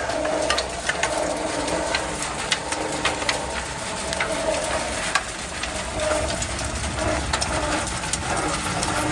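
Processing machinery running steadily with a hum and many irregular sharp clicks and crackles.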